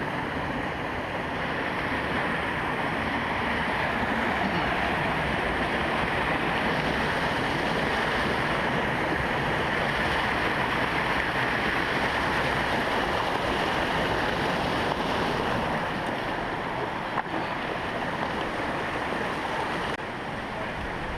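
Creek water running steadily, an even rushing noise that drops a little near the end.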